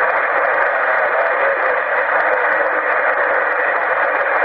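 CB radio on channel 11 (27.085 MHz) hissing with steady static through its speaker, with no voice on the channel.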